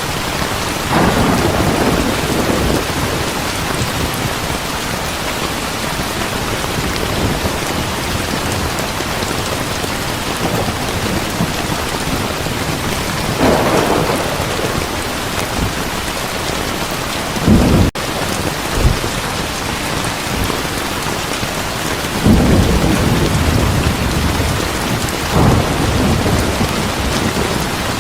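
Heavy rain falling steadily, with rolls of thunder: a rumble about a second in, another around halfway, a sharp loud clap a little later, and a longer rumble near the end.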